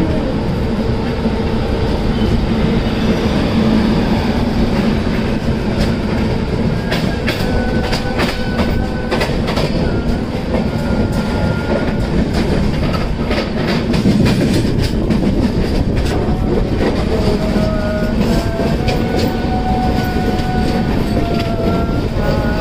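Express passenger train running at speed, heard from an open coach door: a steady rumble with wind noise, and a run of sharp clicks as the wheels cross rail joints and points. In the second half a thin wheel squeal rises in steps as the train takes a curve.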